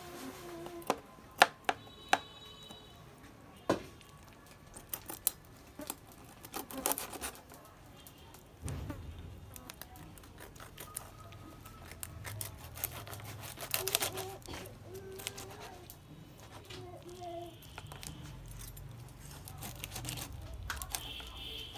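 Kitchen knife cutting a skinned pufferfish on a plastic cutting board: sharp knocks of the blade against the board, loudest in the first few seconds, then lighter taps and slicing scrapes. A low steady rumble joins about eight or nine seconds in.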